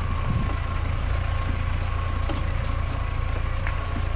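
A motor vehicle's engine running steadily, a constant low hum with a faint steady whine above it.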